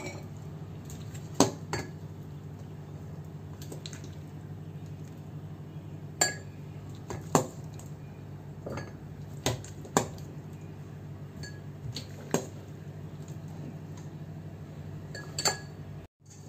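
A metal ladle clinking against a stainless steel mixing bowl and glass jars as diced white radish cubes are scooped out and packed into the jars: about ten sharp, separate clinks at irregular intervals, over a steady low hum.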